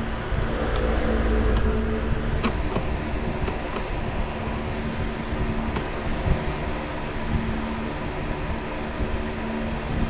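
Steady mechanical hum with a fan-like rush, broken by a few light clicks.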